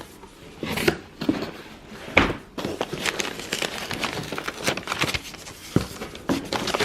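Cardboard box being cut and pulled open: a few sharp knocks, then continuous rustling and crinkling of tape, flaps and packing.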